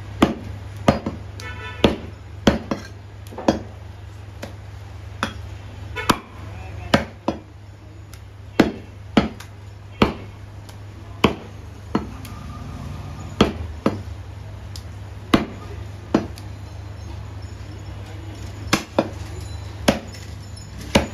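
Heavy butcher's cleaver chopping beef on a wooden chopping block: a string of sharp chops, roughly one a second, some close together, with a short pause about halfway. A steady low hum runs underneath.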